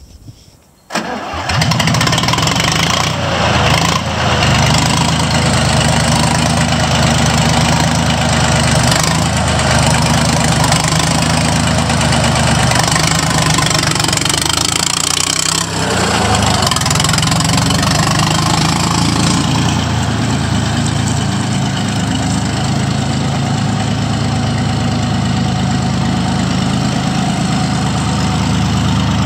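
Lamborghini R340N tractor's diesel engine starting about a second in, then running steadily. About halfway through, its note dips and swings once.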